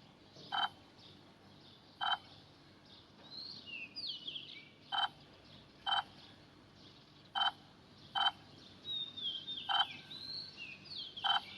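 Short croaking animal calls repeated about eight times at uneven intervals, with a few gliding, bird-like chirps in between.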